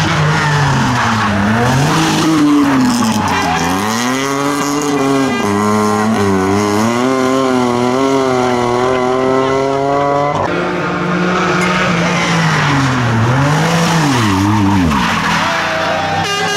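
Rally hatchback's engine revving hard up through the gears and holding high revs for several seconds, then dropping sharply about ten seconds in and blipped up and down through downshifts as the car brakes, with tyre squeal as it slides into a tight bend.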